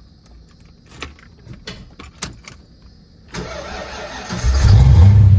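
A few small clicks and key rattles, then about three seconds in a car engine is cranked and catches, running with a loud, steady low rumble. It is a warm start: the engine has already been run once that day.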